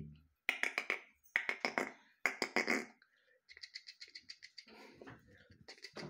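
A person making rapid clicking and kissing sounds with the mouth at a rooster: three quick bursts of several sharp clicks each, then a softer, faster run of clicks that goes on to the end.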